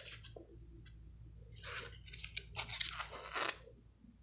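Paper pages of a CD booklet being turned by hand: a run of short, soft rustles and crinkles about two to three and a half seconds in.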